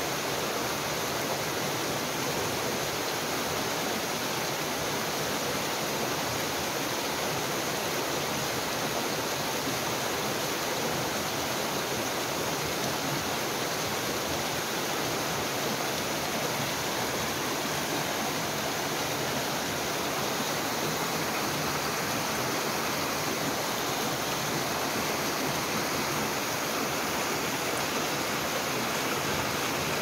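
Mountain stream running in a small cascade between boulders into a pool, a steady rush of water with no breaks.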